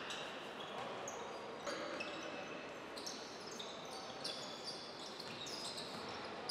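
Basketball shoes squeaking on the hardwood court during play: many short, high squeaks, thickest in the second half, over a steady arena hubbub.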